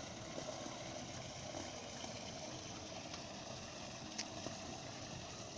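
Garden waterfall feature running: a steady sheet of falling water splashing into its basin, with a faint sharp tick about four seconds in.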